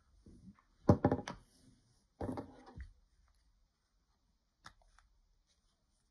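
Handling noise from a hard plastic anime figure: clicks, knocks and rubbing as it is gripped and turned in the hands, in two short clusters about one and two seconds in, the first the loudest, then a few faint clicks.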